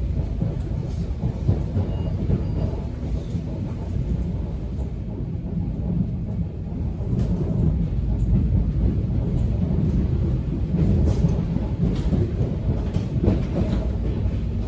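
Subway train running: a steady low rumble with scattered sharp clicks and knocks.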